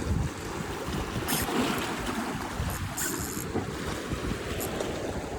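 Wind buffeting the phone's microphone over the wash of surf on the rocks, with a couple of brief high hissing bursts about a second in and around three seconds in.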